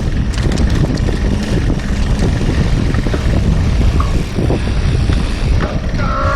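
Wind buffeting and rumble on a helmet- or bike-mounted action camera's microphone while a mountain bike rolls over a dirt trail, with a steady clatter of small knocks from the bike on rough ground. A short squeak sounds near the end.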